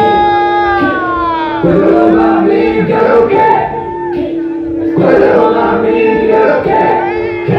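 Live rap performance through a club PA: a backing beat with a held synth note and a rapper's voice on the microphone, with the crowd joining in. A pitched line slides down in the first second.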